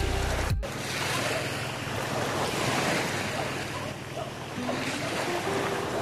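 Small waves washing onto a sandy shore, with wind buffeting the microphone. The tail of background music cuts off about half a second in.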